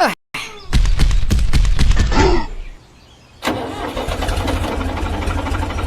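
A small engine starting: it runs roughly for about two seconds and cuts out. About halfway through it starts again suddenly and keeps running with a fast, even ticking.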